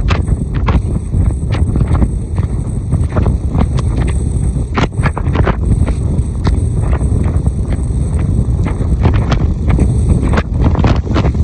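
Strong wind buffeting the microphone with a heavy, steady low rumble and frequent crackles, over the noise of a rough sea.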